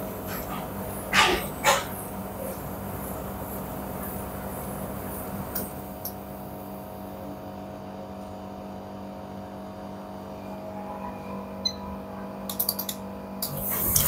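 Siemens tumble dryer running with a steady hum, its pump sending the collected water up into the water drawer. Two sharp knocks come about a second in, and a few quick clicks near the end.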